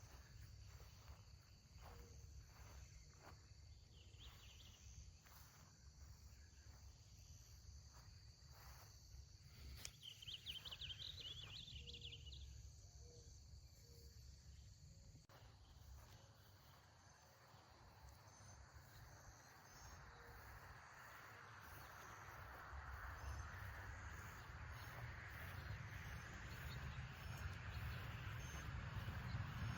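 Faint rural outdoor ambience: a steady high drone of insects, with a short trill about ten seconds in and a hiss that grows louder through the second half.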